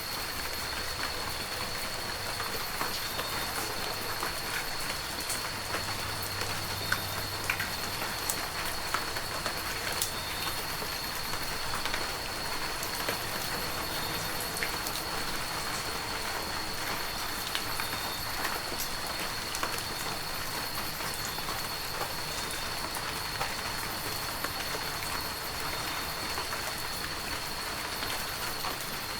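Heavy rain falling steadily in a forest, with many separate drops striking close by over the dense hiss of the downpour. A thin steady high tone runs along underneath.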